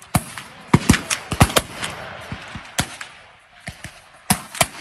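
Black-powder muzzleloading muskets firing along a line: about ten sharp shots at irregular intervals, thickest in the first two seconds and thinning out after.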